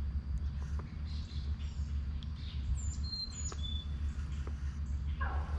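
A few short, high bird chirps about three seconds in, over a steady low rumble.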